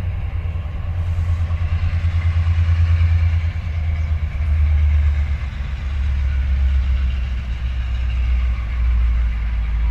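Diesel railway engine idling with a deep, pulsing throb; its note drops lower about four seconds in.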